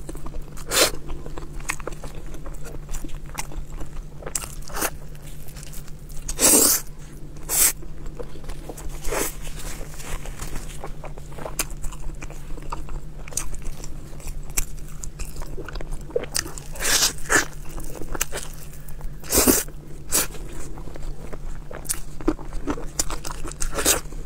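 Close-up eating: a person biting and chewing crunchy food, with irregular crisp crunches, the loudest about six and a half seconds in and again near twenty seconds in.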